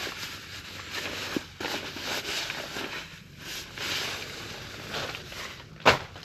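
Irregular rustling and shuffling from camping gear being handled and moved about, with one sharp knock about six seconds in.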